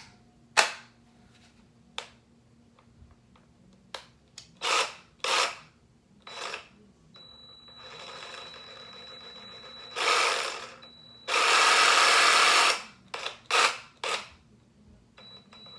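Craftsman cordless power tool run in short trigger bursts, with a longer run of a second or so just past the middle, starting and stopping as the trigger is pressed and released.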